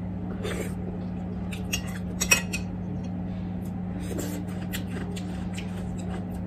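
Eating sounds: a metal spoon clicking and scraping against the dishes, and chewing and mouth clicks, one sharper click a little past two seconds in. A steady low hum runs underneath.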